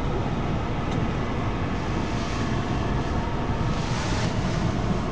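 Car driving slowly over wet mud, heard from inside the cabin: a steady low rumble of engine and tyres, with a hiss that swells briefly twice.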